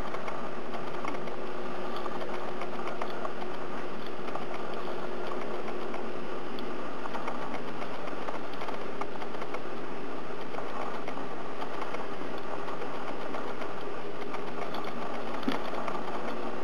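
Steady mechanical whir and hum with a faint held tone, unchanging in level throughout.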